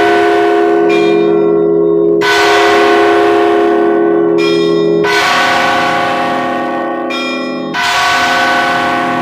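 Russian Orthodox church bells rung in the bell tower. Smaller bells of different pitches are struck in turn, about six strikes, each ringing on, over the steady hum of a deep bell.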